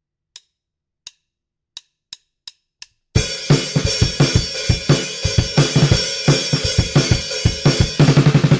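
A count-in of six faint clicks, two slow and then four twice as fast, after which a drum kit comes in about three seconds in, playing a steady kick-and-snare beat under cymbals. A quick run of hits follows near the end.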